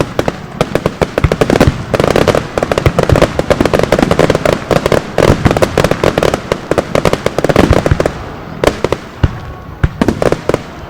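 Fireworks finale barrage: aerial shells bursting in rapid, overlapping booms and crackles, thinning to scattered bursts about eight seconds in.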